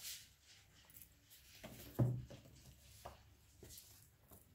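Quiet handling of paper: faint rustles and light taps as a folded paper pocket and a handmade paper journal are moved about, with one soft knock about two seconds in.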